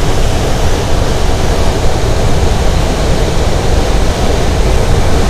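Steady, deep rush of airflow around a glider's cockpit canopy in flight on aerotow.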